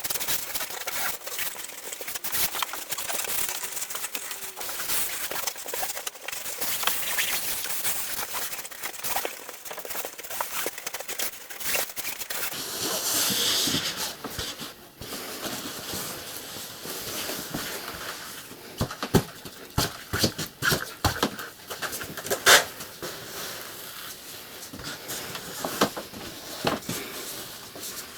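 Crackling and scraping of hands working glued fabric onto a headliner panel, with several sharp knocks a little past the middle.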